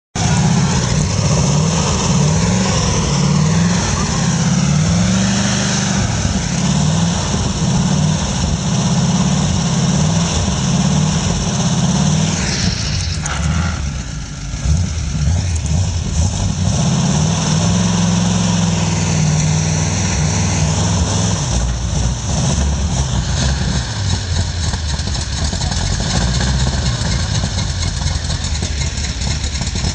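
Modified off-road jeep's engine running loud and close, revving up and down repeatedly as the rig crawls over boulders.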